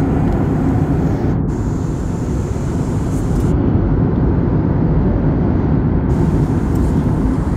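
Jet airliner cabin noise at cruise: a steady low rush of engine and airflow noise heard from a window seat.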